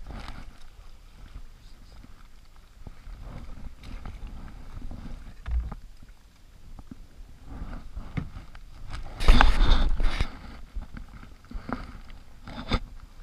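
River water lapping and sloshing against two plastic kayaks rafted side by side, with scattered knocks of paddles and hulls. About nine seconds in comes a louder burst of knocking and splashing lasting about a second, and a sharp knock comes near the end.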